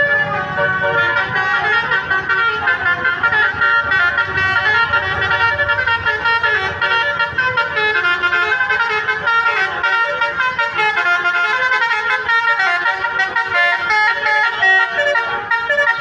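Basuri musical horn on a Defa Trans tourist bus playing a fast melody of many changing notes without a pause.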